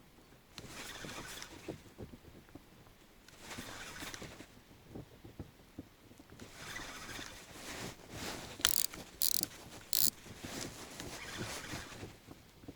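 Spinning reel being cranked in short spells, a whirring ratchety winding that stops and starts as the lure is retrieved in jerks. Three sharp clicks near the middle are the loudest sounds.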